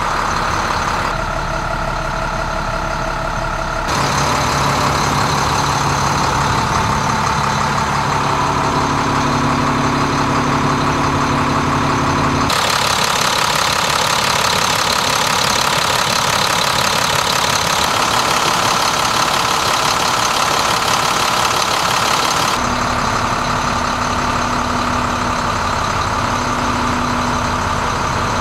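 Diesel engine of a 2006 International 4300 truck idling steadily, its tone changing abruptly several times.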